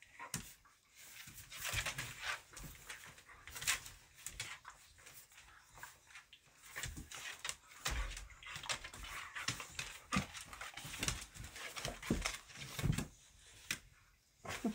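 A boxer and a bully-breed dog play-fighting on a hardwood floor: irregular scuffling, with claws clicking and scraping on the boards and the odd sound from the dogs themselves.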